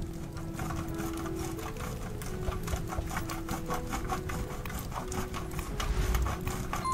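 Hard cheese being grated on a stainless-steel box grater: rhythmic scraping strokes, about three to four a second.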